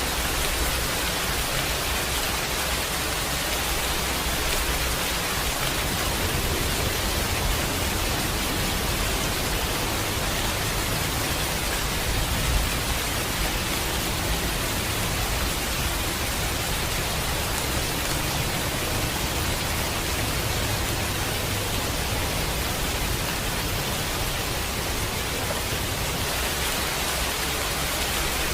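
Steady rain, an even dense hiss, with a low thunder rumble swelling and fading underneath, strongest around the middle.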